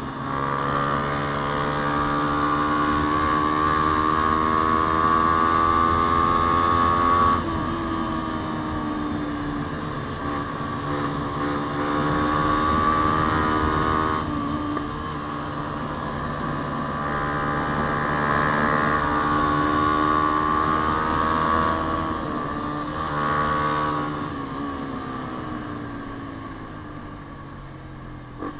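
Yamaha Sniper 150's single-cylinder four-stroke engine on the move through an aftermarket JVT exhaust pipe. The engine note climbs slowly, then drops sharply about seven seconds in and again around fourteen seconds, as at gear changes. Near the end it falls away and gets quieter as the throttle eases off.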